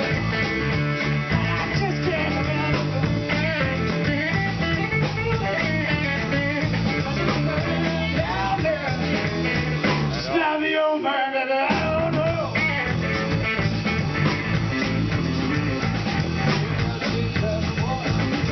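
Live rock band playing electric guitars and drums through amplifiers. About ten seconds in, the drums and low end drop out for about a second, leaving a lone guitar phrase with bent notes, and then the full band comes back in.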